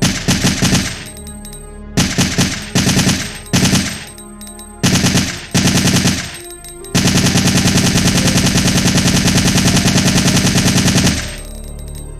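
M4A1 assault rifle firing on full auto: a series of short bursts of a few rounds each, then one long continuous burst of about four seconds that stops about a second before the end. A low steady musical drone sits underneath.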